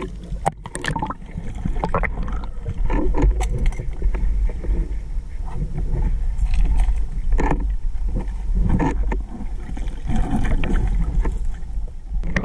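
Water sloshing and gurgling around a spearfisher moving through a river at night with a harpoon: a steady low rumble with irregular splashes and knocks.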